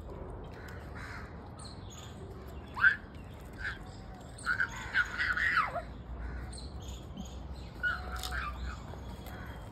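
Crows cawing, with smaller birds chirping in the background. The loudest calls come about three seconds in and in a cluster around five seconds in.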